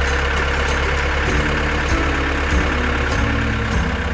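A vehicle engine running steadily, with music underneath.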